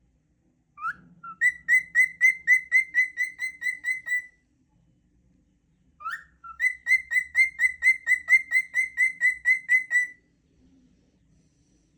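Cockatiel whistling two phrases a couple of seconds apart. Each opens with a short rising note, then runs into a fast string of the same clear note repeated about five times a second for three to four seconds.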